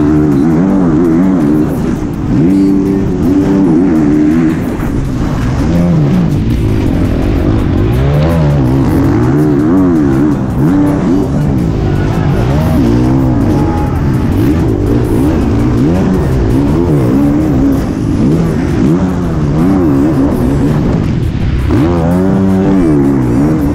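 Onboard sound of a 450cc four-stroke motocross bike at race pace: the engine revs rise and fall over and over as the rider shifts gears and works the throttle.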